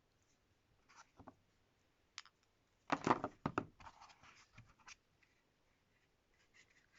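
Hands handling packaging and its contents: scattered rustles and light clicks, with a louder cluster of knocks and rustling about three seconds in.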